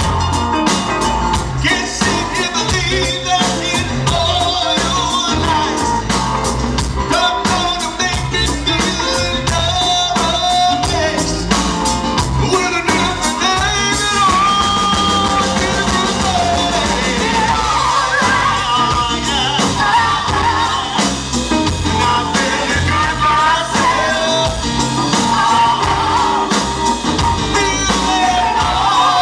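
Live blues band playing a full song, with drums, bass and guitars under a lead singer's voice.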